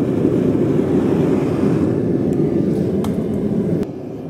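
Gas forge burner running with a steady low rumble; it drops to a quieter level near the end, with a few faint clicks.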